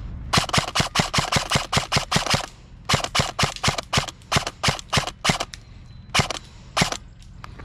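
Krytac Trident MK2 SPR airsoft electric rifle firing close up: two strings of about ten quick shots each, about five a second, then two single shots near the end.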